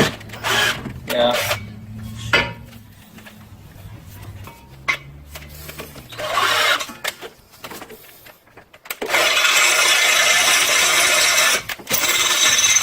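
Power drill boring a hole through a metal bracket: several short bursts first, then a loud, steady drilling noise from about nine seconds in, with a brief break near the end.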